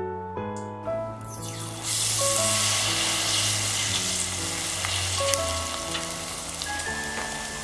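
A tempura-battered lotus root slice frying in a deep fryer's hot oil. The sizzle breaks out about a second and a half in as the slice goes into the oil, and it stays loud and steady after that.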